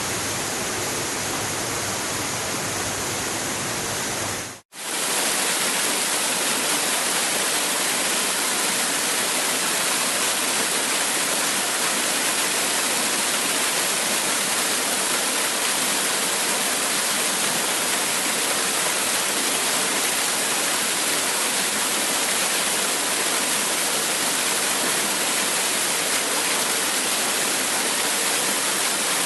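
Steady rushing of a waterfall. About four and a half seconds in, the sound drops out for a moment and comes back brighter, with less low rumble, where one recording is cut to another.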